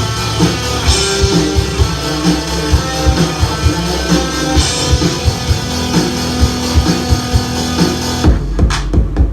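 Rock music: guitar over a drum kit with a regular beat. About eight seconds in, the guitars drop away, leaving only drums and bass.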